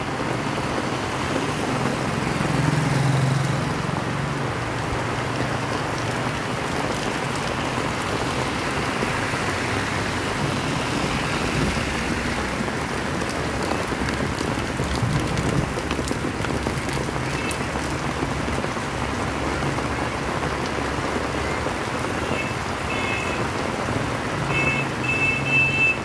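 Heavy rain falling steadily, with the low hum of passing motor vehicles, strongest about three seconds in and again near the end.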